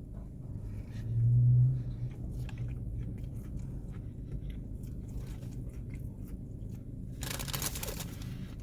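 Close-up chewing of a crunchy-battered buttermilk fried chicken burger, with faint crunching clicks throughout and a louder crunch near the end. A short low hum comes about a second in.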